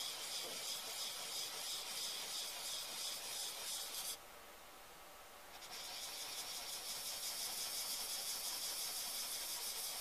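A Defiance hand plane's steel iron rubbed back and forth on the 700-grit side of a diamond sharpening plate, making a steady hissing scrape. It stops for about a second and a half just after the middle, then starts again.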